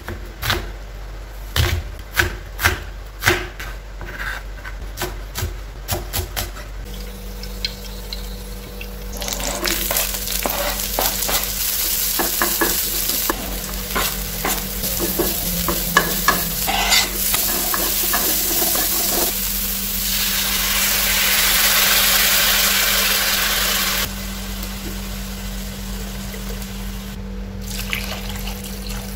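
A chef's knife chopping garlic on a cutting board, a run of sharp strikes. Then chopped onion, garlic and chilli sizzle as they fry in a wok, with the clicks of a wooden spatula stirring. A steady low hum comes in at about seven seconds. The sizzle grows louder for a few seconds after twenty seconds in, then drops to a quieter simmer.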